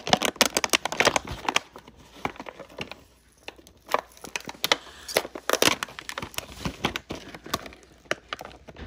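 Shiny plastic-foil wrapper of a Beyblade booster pack crinkling as hands handle it, in irregular bursts of crackles with a brief lull about three seconds in.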